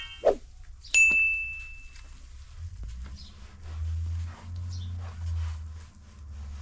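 A steel mixing basin gives a single metallic ring about a second in as it is knocked while dough is worked in it, the tone dying away over about a second. After that, soft sounds of hands kneading the dough in the basin over a low rumble that swells and fades.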